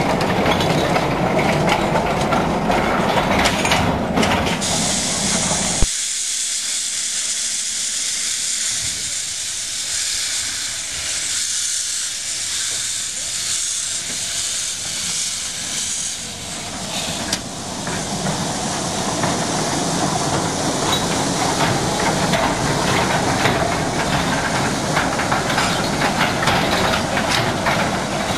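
Narrow-gauge steam locomotives: one running along the track at first, then a loud steady hiss of steam blowing from a locomotive's open cylinder drain cocks for about ten seconds, and from past halfway the running noise of a locomotive and its train of tipper wagons on the rails with steam still hissing.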